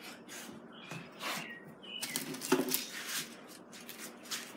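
Irregular rustling and light knocks of things being handled, with a couple of short squeaks.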